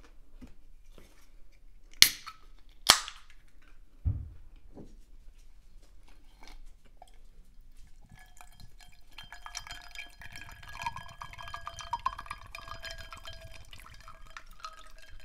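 Two sharp clinks and a thump of dishes being handled at a table, then a faint steady whine over light rustling for the last several seconds.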